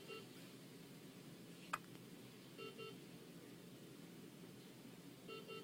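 A single short, sharp hiccup about two seconds in, against near silence. A faint electronic double beep repeats about every two and a half seconds.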